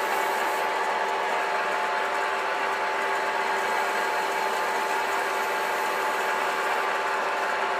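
Metal spinning lathe running steadily with a copper tube turning in it: an even machine hum with several fixed tones over a hiss.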